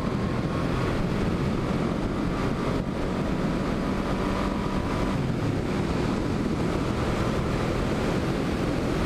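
Heavy wind rushing over the microphone of a motorcycle riding at speed, with the 1986 Yamaha V-Max's V4 engine running steadily underneath.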